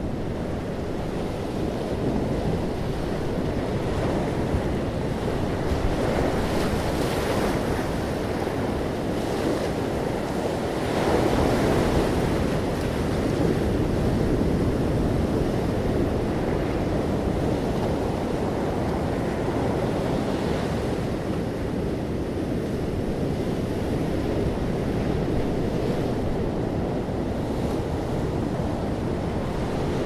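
Ocean surf breaking and washing up a pebbly sand beach: a continuous wash that swells louder as sets of waves come in, loudest about eleven seconds in.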